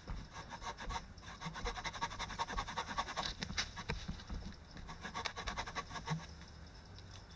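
Hand pull saw cutting through wood in quick, rasping strokes, worked one-handed; the sawing stops shortly before the end.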